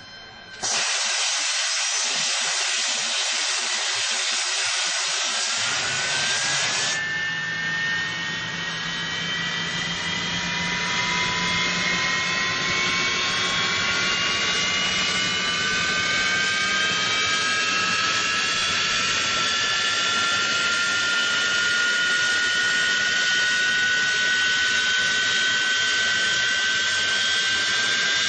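Jet engine running: a loud, steady rushing roar starts abruptly about a second in. From about seven seconds a whine climbs slowly and steadily in pitch over the roar as the engine spools up.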